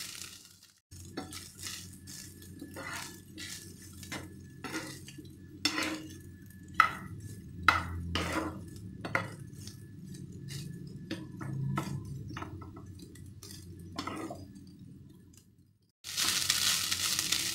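Wooden spatula knocking and scraping against a nonstick frying pan as cooked rice and vegetables are stirred and tossed, in irregular clicks and knocks. Near the end a loud, even frying sizzle starts abruptly.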